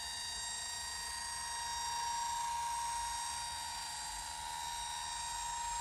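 Steady high-pitched electronic tone, buzzy with overtones, holding one pitch and swelling slightly in loudness a couple of times.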